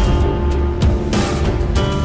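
Background music with a heavy, driving beat.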